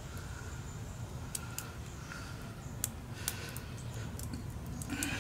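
A scatter of light, sharp metallic clicks and ticks as a small bolt and nut are handled at a battery terminal and its wire connectors. They come irregularly, mostly in the middle of the stretch, over a steady low background rumble.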